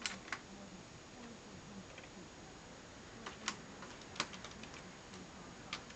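A kitten playing inside a wicker basket with its wire handle, making scattered sharp clicks and taps, the loudest a little past halfway.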